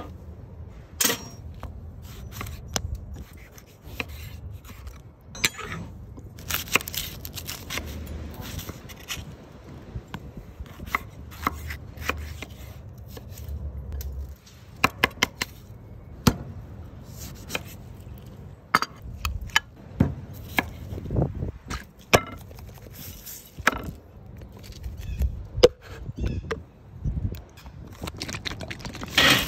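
A run of food-prep sounds: scraping on a metal grill grate, a knife chopping on a wooden cutting board, and a utensil clinking in a glass jar, heard as many irregular sharp knocks and taps. A low rumble sits under them for the first half.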